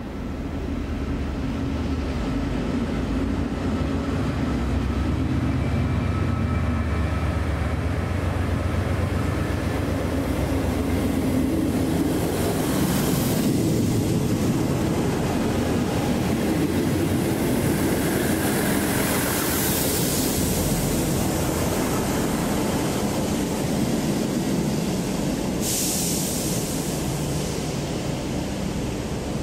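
A passenger train running through the station with a steady rumble of engine and wheels. There are two short hisses, one about halfway through and one near the end.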